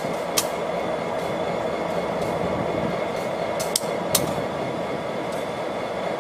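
Diesel locomotives running light, their engines rumbling steadily with a faint whine over the top. A few sharp clicks stand out in the first half.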